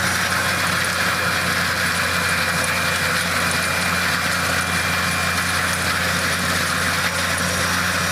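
Bucketmouth stump grinder running steadily under its big engine, the heavy grinding drum spinning at speed: a constant low hum with a steady rushing noise over it.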